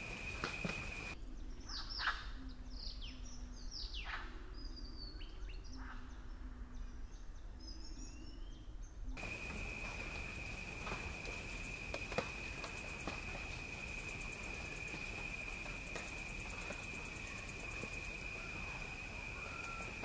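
Wild birdsong: sharp whistled notes falling steeply in pitch and quick chirps, with a few low hooting notes beneath, for about eight seconds. Then the sound changes to a steady high insect drone with scattered faint bird calls.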